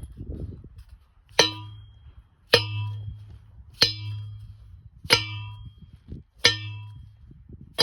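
Steel angle-iron fence post being driven into stony ground with a post-driving tool: six ringing metal clangs, about one every 1.3 seconds.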